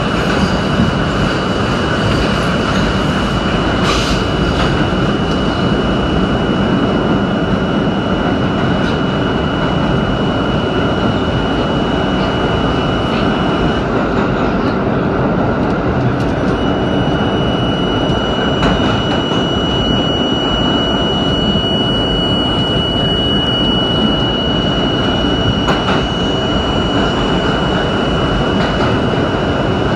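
R32 New York City subway train running at speed through a tunnel, heard from inside the car as a loud, steady rumble and rattle. A thin high whine sits over it throughout, dropping out for a couple of seconds about halfway and then returning, with an occasional click from the track.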